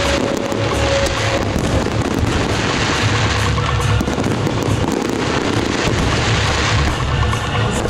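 Fireworks display going off continuously: dense rapid crackling and popping over a low rumble of bangs.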